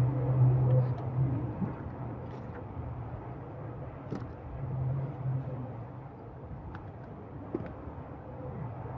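A low steady hum that fades after the first second and swells again briefly about five seconds in, with a few faint clicks.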